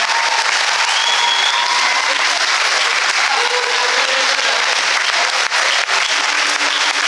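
A large crowd applauding steadily, with a few voices calling out over the clapping.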